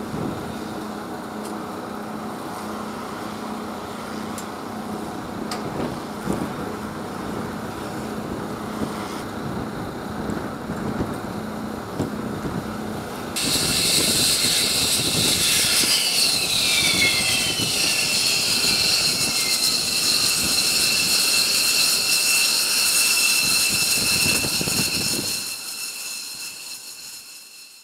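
A steady low drone with scattered clicks and knocks, then, about thirteen seconds in, the loud high-pitched whine of F-15 jet engines, with steady tones and a few pitches sliding downward. The deep rumble under the whine fades out near the end.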